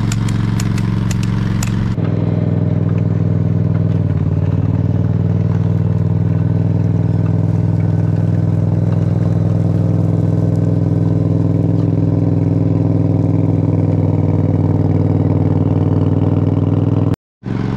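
Heavy paving equipment's diesel engine running steadily at constant speed while millings are laid, with a light rapid ticking over it until about two seconds in. The sound cuts out briefly near the end.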